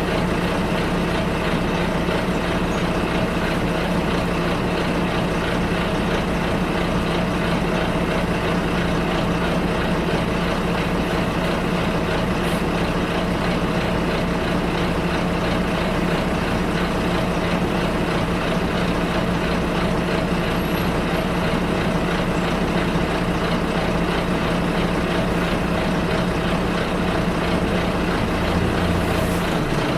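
Bus engine drone with road noise, heard from inside the moving bus. The steady low engine note shifts lower just before the end.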